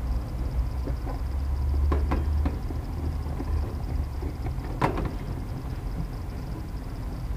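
A few sharp knocks or clinks, the loudest about five seconds in, over a low steady rumble.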